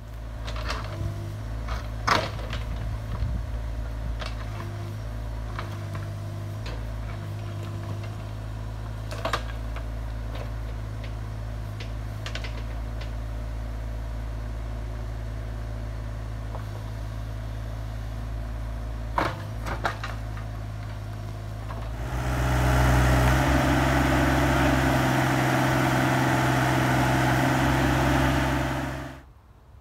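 Bobcat E32 mini excavator's diesel engine running steadily as the machine digs, with a few sharp knocks. About two-thirds of the way through, the engine note gets louder and higher under load, then cuts off suddenly.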